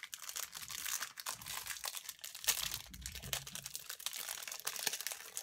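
Plastic wrap being picked at and peeled off a puzzle cube's packaging: irregular crinkling and crackling, with one sharper crackle about two and a half seconds in.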